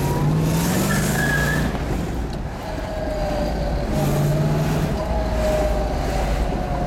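1971 Plymouth Hemi 'Cuda's 426 Hemi V8 pulling the car along in traffic: the engine note rises as it accelerates through the first second and a half, then eases off and runs steadily under road noise.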